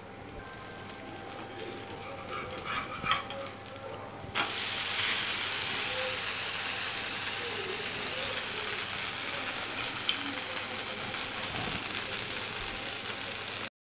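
Ragi dosa batter sizzling on a hot dosa tawa, with a few light clicks about three seconds in. About four seconds in the sizzling jumps much louder and stays steady, then cuts off just before the end.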